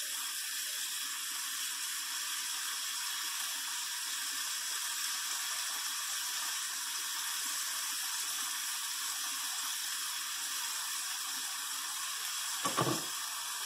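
Beef burger patties sizzling steadily on a stovetop griddle over thin-sliced onions, just after being flipped. A brief clatter near the end.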